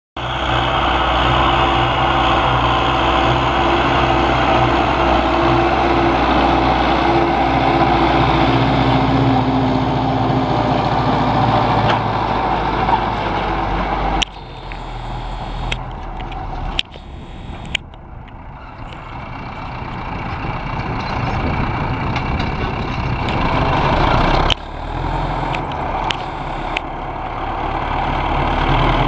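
MTZ 820 tractor's four-cylinder diesel running steadily under load, pulling a heavy disc harrow. It turns abruptly quieter about halfway through, with a few sudden jumps, and comes back up near the end.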